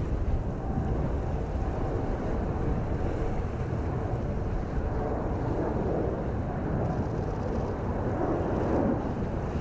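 Jet engines of a Boeing 777-246 airliner on final approach with landing gear down, a steady low rumbling roar, mixed with wind buffeting the microphone.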